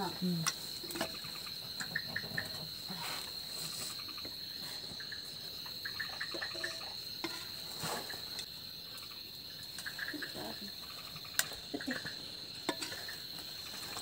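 Crickets trilling steadily at a high pitch, with scattered clinks of a ladle and spoon against metal pots and plates as food is served.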